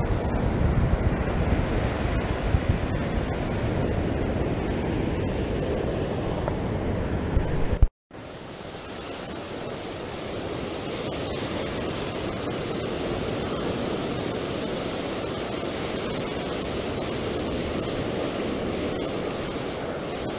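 Surf breaking and washing up the sand, with wind buffeting the microphone in the first part. The sound cuts out suddenly about eight seconds in, then the surf goes on steadily with much less wind rumble.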